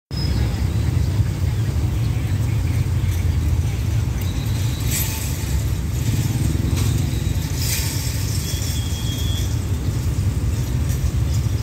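Steady low rumble of road traffic, with brief hissing swells about five and eight seconds in and a short faint high whine near nine seconds.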